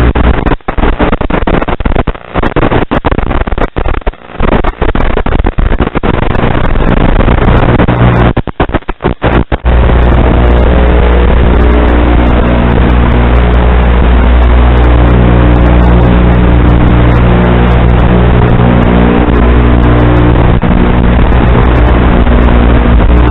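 Loud static hiss with a steady buzzing hum, the audio track of an analog FPV video recording from a tiny whoop drone. It breaks up in short dropouts several times during the first ten seconds, then runs on unbroken.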